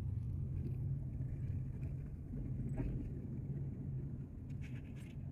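Low, steady rumble of a car's engine and road noise heard from inside the cabin while driving.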